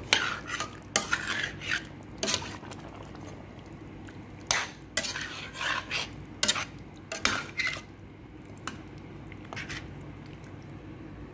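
Metal spoon stirring chicken pieces in curry sauce in a metal cooking pot, with irregular clinks and scrapes against the pot's sides. The stirring is busy for most of the time, thins out to a few clinks near the end, and runs over a steady low hum.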